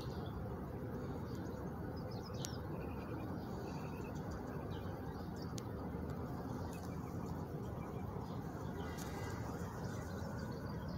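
Steady low outdoor background noise with faint, scattered bird chirps.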